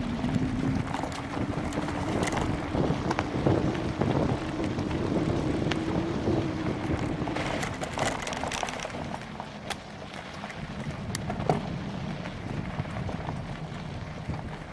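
Bicycle riding over rough trail: tyre rolling noise with scattered knocks and rattles from the bumpy ride, and wind buffeting the microphone. A low hum rises slightly over the first half and fades out about halfway through.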